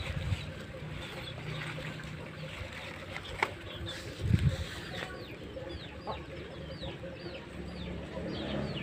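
Chickens clucking in the background, with small birds chirping in many quick, high falling calls in the second half. A sharp click about three and a half seconds in and a dull knock just after are the loudest moments.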